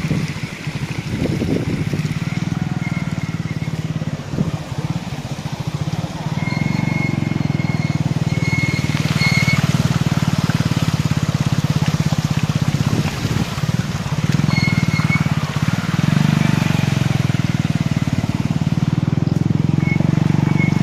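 Engine of a motor vehicle running steadily, its low hum getting louder about six seconds in. A few short high-pitched tones are heard over it several times.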